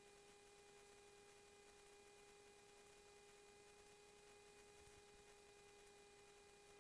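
Near silence: a faint, steady electrical hum with light hiss.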